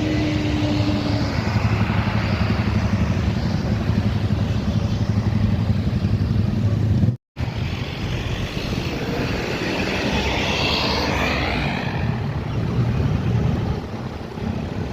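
Heavy diesel engine rumble of a bus with road traffic driving past. The sound drops out for a moment about seven seconds in, then another vehicle passes with a hiss that swells and fades.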